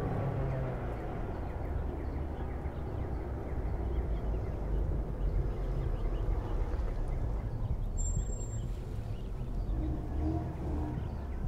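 Steady outdoor background ambience: a low, even rumble with no speech.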